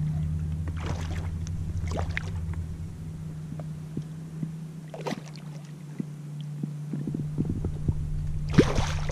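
A hooked fish splashing at the surface beside a kayak a few times, over a steady low hum.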